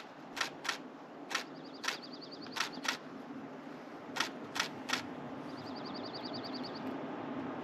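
Camera shutter clicking: about ten single shots at uneven spacing, some in quick pairs. Twice in between comes a short, fast run of faint high ticks, and a low steady hum sits underneath.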